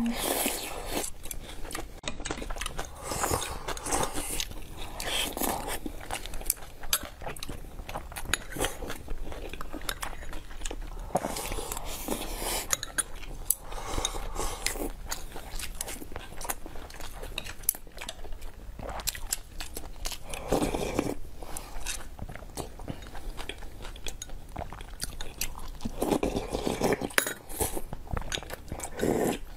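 Close-miked eating sounds: chewing and slurping soup from bowls and spoons, with chopsticks and spoons clicking against ceramic bowls.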